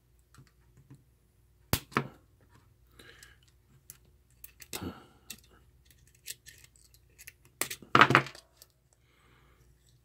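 Scattered sharp clicks, snips and small handling knocks as wire strippers work at the metal terminals of a photocell light switch. The loudest are a sharp click a little under two seconds in and a cluster of clicks about eight seconds in.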